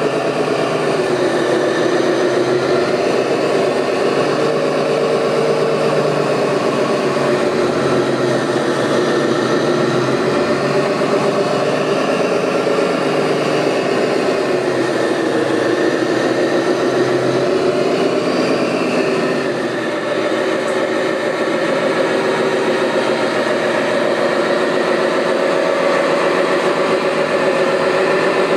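Radio-controlled model construction vehicles' motors running, their pitch slowly rising and falling as the machines speed up and slow down.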